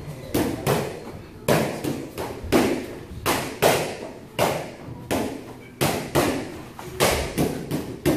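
Feet stepping and landing on a boxing ring's canvas floor during shadowboxing footwork: uneven thuds about twice a second, each with a short echo.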